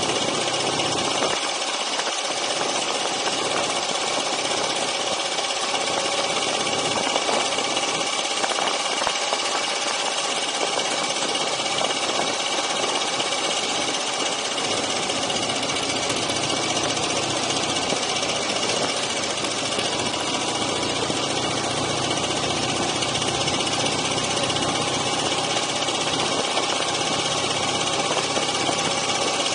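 Dnepr MT-9 sidecar motorcycle's flat-twin engine running steadily under way at an even road speed.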